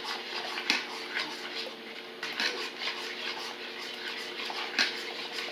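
A spoon scraping and stirring round the inside of a saucepan in irregular strokes, over a steady hum.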